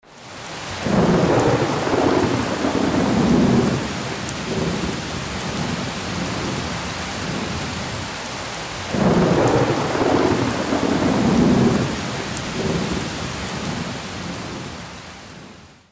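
Steady rain with two long rolls of thunder, one starting about a second in and another about nine seconds in. The storm sound fades in at the start and fades out at the end.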